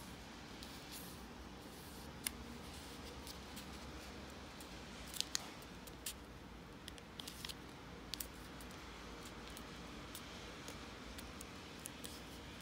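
Sheet of origami paper being folded and creased by hand: scattered short crackles and sharp ticks of stiff paper, a few louder snaps about 2 and 5 seconds in, over a faint steady hiss.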